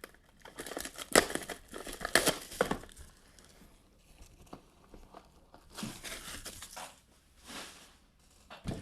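Plastic wrapping being torn and crumpled off small trading-card boxes, in irregular crinkling bursts that are loudest in the first few seconds.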